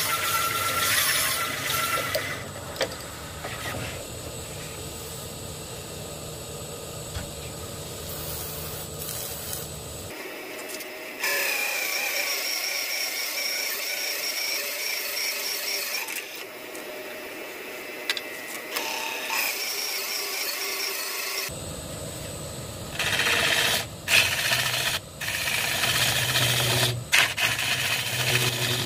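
Wood lathe running while a hollowing tool cuts inside a spinning Kaizuka juniper log, a steady scraping cut over the motor's hum. The sound changes abruptly about ten seconds in and again about twenty-one seconds in, and the cutting turns louder and uneven near the end.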